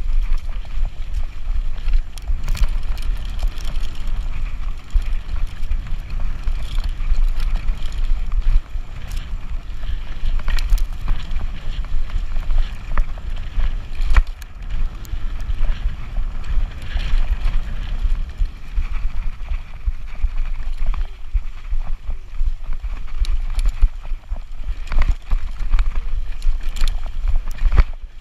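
E-bike ridden fast over a dirt forest trail: a steady rumble of tyres and wind on the microphone, with frequent sharp clicks and rattles as the bike jolts over bumps.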